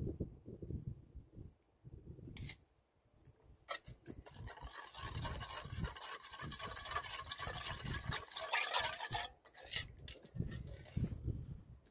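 A metal spoon stirring and scraping a thin liquid seasoning around a small stainless steel bowl, with liquid sloshing. The stirring is busiest from about four seconds in to about nine.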